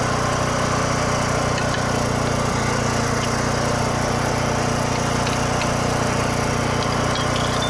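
Portable generator's engine running steadily, a constant drone.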